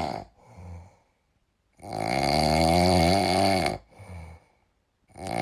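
A sleeping pet snoring in a slow rhythm: one long, loud buzzy snore of about two seconds, a short quieter breath after it, and the next snore starting near the end.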